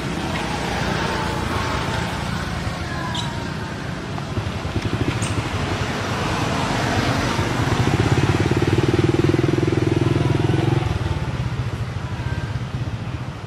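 A small engine running steadily, getting louder for a few seconds about two-thirds of the way through, then easing off.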